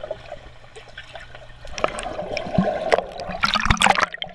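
Muffled swimming-pool water heard underwater: a swimmer moving past stirs up bubbling and swishing, quieter at first and louder and busier from about two seconds in.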